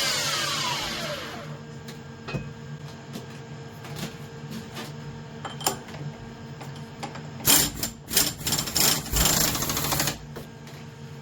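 DIY CNC machine spindle winding down with a falling whine, leaving a steady low hum. Scattered metal clicks follow, then a burst of rapid clattering knocks from about 7.5 to 10 seconds.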